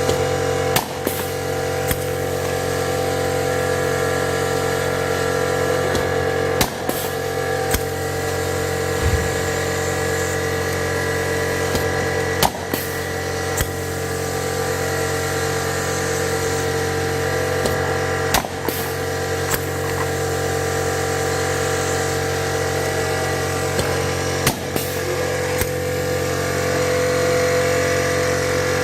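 Pneumohydraulic blind-rivet tool setting 6.4 mm steel blind rivets one after another. Each set gives a sharp snap as the mandrel breaks, followed about a second later by a second click, about every six seconds. A steady machine hum runs underneath.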